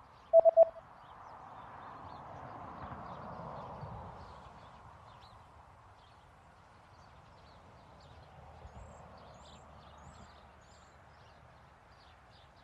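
A brief electronic quiz beep, a few quick pulses at one pitch, as the answer choices come up. Then only faint, steady background noise with scattered light ticks.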